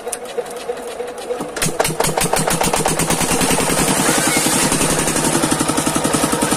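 Single-cylinder 8 hp Lister-type diesel engine driving a water pump, hand-cranked and catching about a second and a half in, then running with a steady rapid exhaust beat. Soon after, the pump primes and water gushes from its outlet pipe with a splashing hiss.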